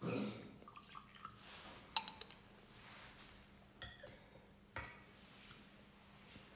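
A few faint, sharp clinks and knocks, about two, four and five seconds in, over quiet room tone, with a brief low rustle at the start.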